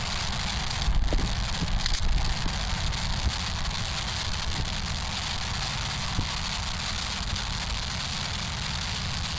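Steady wind rumble and hiss on the microphone, with a few light clicks about one to two seconds in as a Kel-Tec P-11 9mm pistol is handled and charged.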